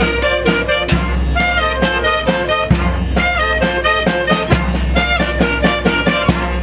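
Youth wind band of clarinets, saxophones and brass playing a brisk tune with a steady beat.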